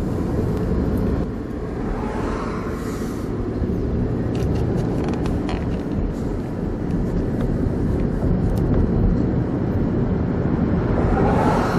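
Steady low rumble of a car driving at town speed, engine and tyre noise heard from inside the cabin. A rising whoosh swells briefly about two seconds in and again near the end.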